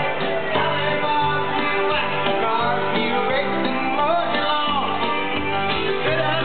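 A country-style song with guitar and singing, played loud and steady over a passing parade float's sound system.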